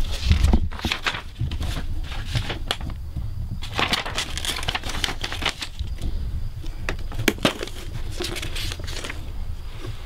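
Paper and cardboard packaging rustling and crinkling as hands rummage through a box of papers and medical supplies, with scattered light clicks and knocks.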